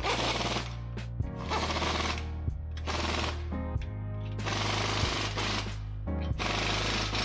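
Pneumatic impact wrench hammering bolts tight in five short bursts, each lasting under a second. Background music plays underneath.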